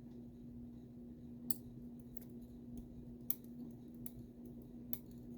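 Small sharp metallic clicks and taps from a disassembled American Lock 1100 padlock as a driver pin is worked out of its chamber with small tools; a few scattered clicks, the loudest about a second and a half and three seconds in.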